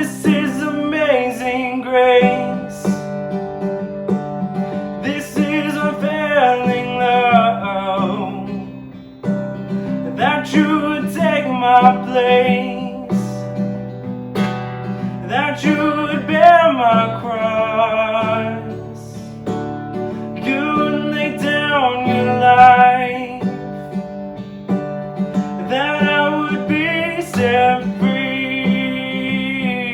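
Worship music: a singer's long, wavering phrases, separated by short pauses, over held low instrumental notes.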